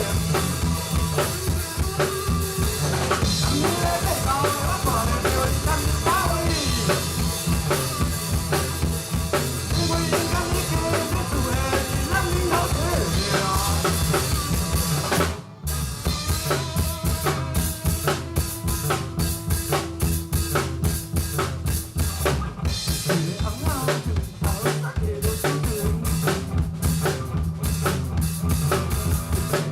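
Live band playing loudly, with the drum kit's bass drum and snare to the fore. The music drops out for a moment about halfway through, then comes straight back in.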